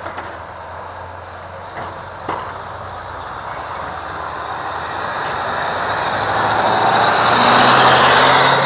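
Heavy diesel machinery at work: a few knocks from the excavator loading earth, then a truck's diesel engine running close by, growing steadily louder and peaking near the end.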